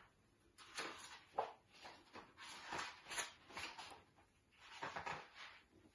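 Pages of a large picture book being handled and turned: a string of faint, irregular paper rustles.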